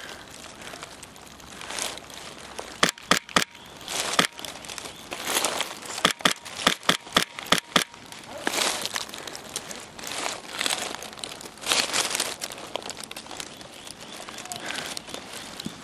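Rustling and crunching of dry undergrowth, with a quick run of sharp cracks in the middle.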